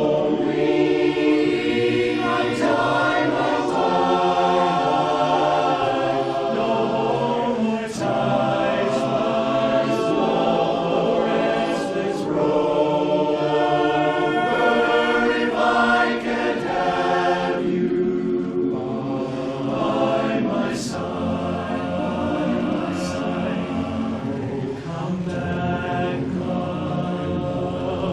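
Barbershop chorus singing a cappella in close four-part harmony, with chords held and moving.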